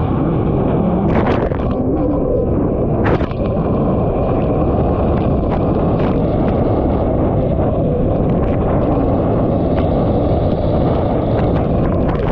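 Kawasaki SX-R 1500 stand-up jet ski's four-stroke engine running hard under race throttle, mixed with wind buffeting the microphone and water rushing past. Two sharp knocks, about a second in and again about three seconds in.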